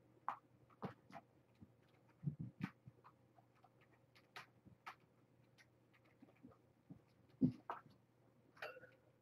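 Kittens playing on a carpeted floor: scattered soft taps and clicks with a few dull thumps as they scamper about and bat at toys, one louder thump near the end.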